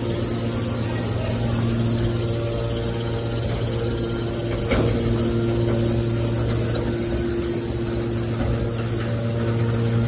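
Hydraulic scrap metal baler's power unit running steadily, a constant hum with a few steady tones above it. A single knock about halfway through.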